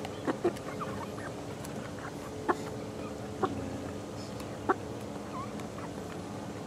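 Young chickens, about eleven weeks old, clucking with short, sharp calls every second or so, over a steady low hum.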